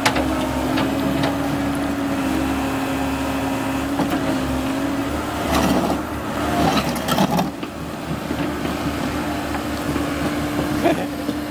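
Komatsu PC130F hydraulic excavator's diesel engine running steadily as the boom and bucket work. About six to seven and a half seconds in, a louder, irregular stretch of knocks and shifting pitch cuts in over the engine.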